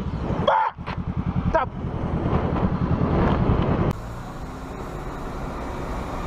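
Motorcycle engine running with a fast, even low throb, with wind on the helmet camera. After about four seconds it changes suddenly to the steadier, quieter hum of a car's engine and road noise heard from inside the car.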